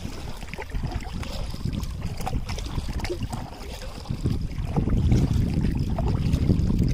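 Strong wind rumbling on the microphone, with small splashes of water against a kayak hull. The wind rumble builds over the last couple of seconds.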